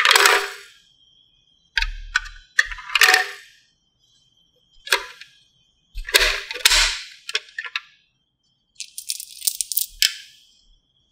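Plastic toy coins dropped into a toy vending machine's coin slot, clattering against the hard plastic in several short bursts. Near the end comes a quick run of sharp clicks as a batch of coins tumbles out.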